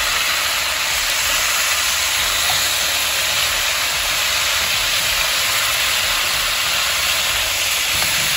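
Oxtail pieces sizzling steadily as they brown in a hot pot.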